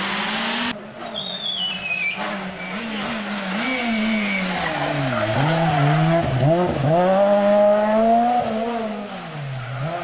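Renault Clio rally car's engine running hard through a hairpin: the revs dip and recover several times as it brakes and shifts down, then climb loudly as it accelerates away, falling off near the end as it passes.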